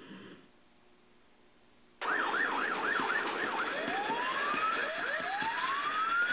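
Ambulance siren cutting in suddenly about two seconds in after a near-silent pause. It starts with a fast yelp warble, then changes to long rising wail sweeps over traffic noise.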